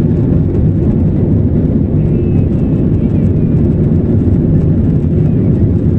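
Jet airliner cabin noise during the takeoff roll: engines at takeoff power and wheels on the runway making a loud, steady low rumble, heard from inside the cabin.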